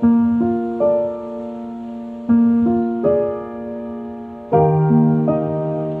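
Slow, gentle solo piano music, single notes struck one after another and left to ring and fade.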